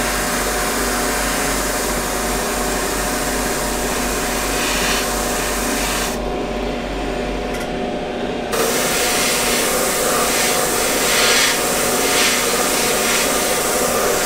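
Airbrush hissing as it sprays paint in splotches, over a steady hum. The hiss cuts out for a couple of seconds about six seconds in, then comes back in uneven pulses.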